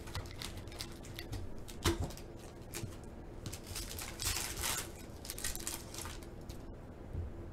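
Foil wrapper of a Panini Select football card pack being handled, torn open and crinkled as the cards are pulled out, with a sharp click about two seconds in and the loudest crinkling around four to five seconds in.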